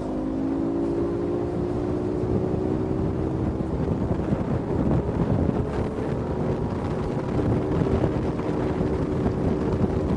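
Outboard motor of a rigid inflatable boat running hard under acceleration as the boat comes up on plane. The engine tone climbs slightly in the first few seconds, under a steady rush of wind buffeting the microphone and water rushing past the hull.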